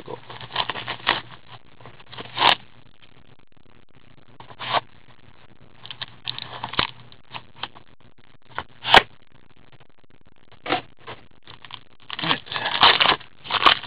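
Gloved hands opening a 2013-14 Upper Deck Ultimate Hockey cardboard box: scattered scrapes, clicks and rustles of cardboard and packaging, with one sharp click about nine seconds in and denser rustling near the end.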